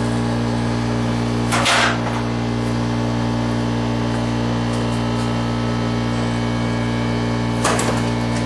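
Two short blasts of compressed air from an air-hose blow nozzle, about two seconds in and again near the end, blowing rust chunks out of a blacksmith's vise, over a steady low hum.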